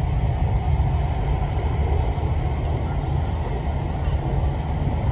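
Steady low outdoor rumble, with a short high peep repeating about three times a second from about a second in.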